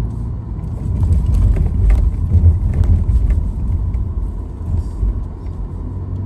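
Road and engine rumble inside a car's cabin as the car pulls away and drives through an intersection. It grows louder from about a second in, with a few light knocks in the middle.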